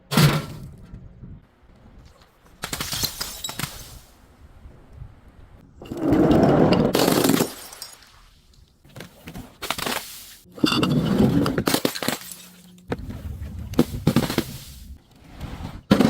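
Objects being crushed and broken, crunching and cracking in a series of about six separate bursts, the loudest about six seconds in and about eleven seconds in.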